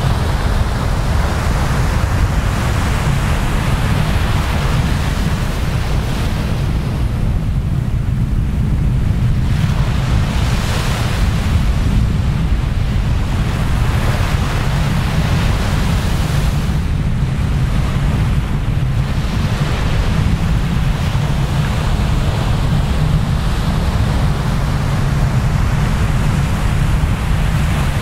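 Ocean surf washing onto a beach, the hiss of the water swelling and fading as waves come in, over a constant low rumble of wind on the microphone.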